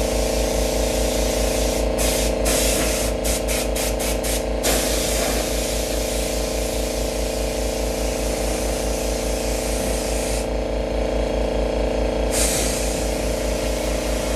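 HVLP gravity-feed spray gun hissing as it sprays liquid mask, in a run of short quick trigger bursts about three seconds in, then steadier passes, with a pause of about two seconds near the end. An air compressor hums steadily underneath.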